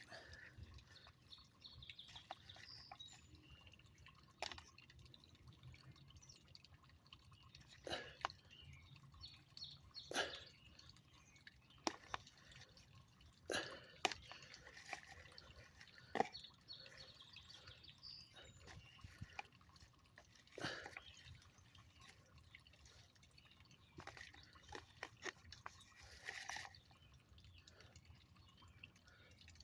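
Faint, scattered drip-like clicks and taps, about a dozen at irregular intervals, over a quiet background.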